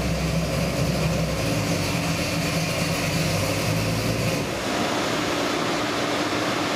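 Ford 347 stroker small-block V8 idling steadily at about 950 rpm on an engine dyno, settled back down just after a full-throttle power pull.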